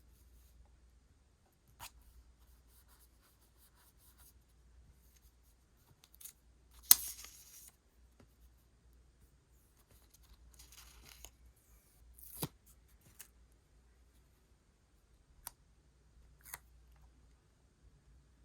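Scissors cutting paper and paper being handled: separate snips, clicks and short rustles at uneven intervals, the loudest about seven seconds in.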